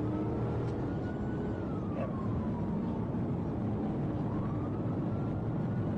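Police car siren wailing in a slow rise and fall, about one cycle every four to five seconds, over a steady low rumble of vehicle engine and road noise.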